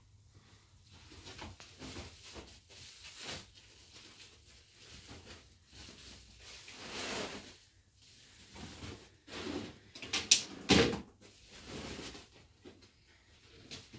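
Large fabric cloths being unfolded and spread over a floor mat by hand: rustling and flapping in short, irregular bursts, the loudest a pair of sharp flaps about ten seconds in.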